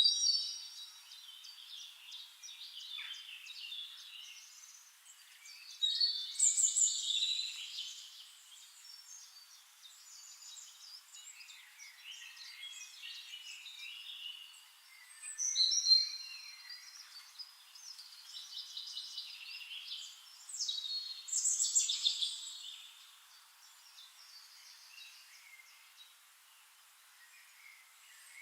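Songbirds chirping and singing in short high phrases, with louder bursts of song every several seconds over quieter chirping.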